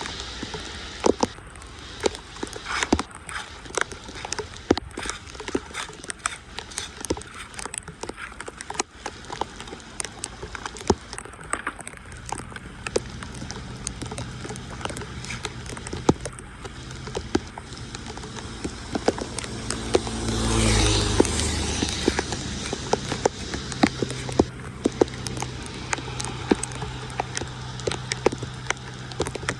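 Irregular knocks and scrapes of debris being cleared from a clogged street drain. About two-thirds of the way through a motor vehicle passes, and a low engine hum continues after it.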